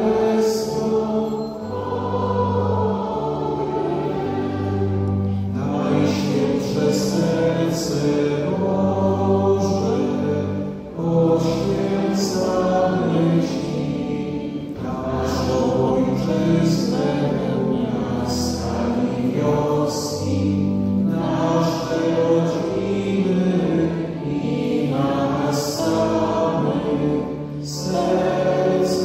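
A church hymn sung by many voices, with long held low accompanying notes underneath, running on phrase after phrase without a break.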